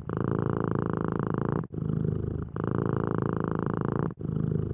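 Domestic cat purring close to the microphone, the purr switching back and forth between its in-breath and out-breath phases every second or so, with a brief break at each switch.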